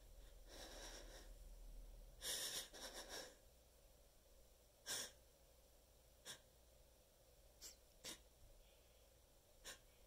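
A person's sneeze buildup, faint overall: a long drawn-in breath, then a cluster of short, breathy catches a couple of seconds in, one sharp sneeze-like burst about five seconds in, and a few brief sniffs.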